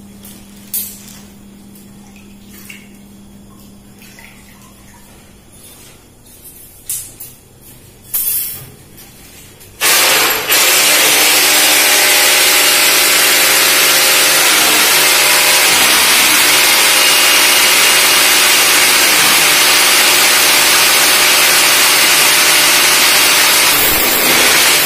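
A few light knocks, then about ten seconds in an electric drill starts boring into the ceramic-tiled wall. Its steady, loud grinding whine runs on without a break.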